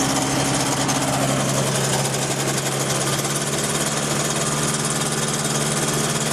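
ASAP Beaver SS ultralight aircraft engine running steadily and smoothly, freshly started from cold; its tone shifts slightly about a second and a half in.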